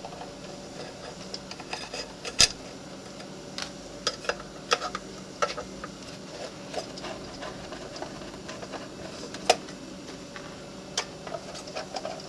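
Hands working an external hard drive enclosure apart to get its cover off: irregular small clicks and knocks of its parts, with louder knocks about two seconds in and again near ten seconds.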